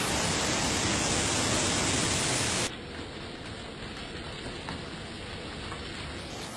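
Water spraying onto a car in an automatic car wash: a steady hiss that drops suddenly to a quieter spray about two and a half seconds in.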